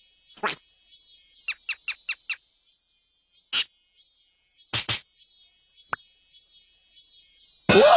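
Cartoon squeaks and pops: a quick run of five short, falling squeaks a little over a second in, a few scattered pops and blips, then a louder burst with a rising swoop just before the end.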